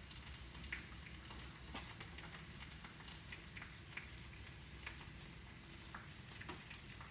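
Sliced mushrooms frying in oil and butter in a hot pan: a faint sizzle with scattered small crackles.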